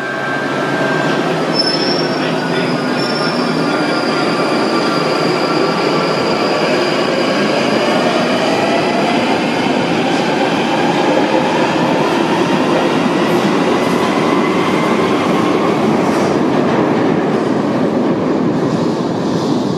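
London Underground Northern Line 1995 Stock train pulling out of the platform and accelerating into the tunnel. Its motors give a whine that rises steadily in pitch over the loud, continuous rumble of wheels on the rails, with a brief high squeal near the start.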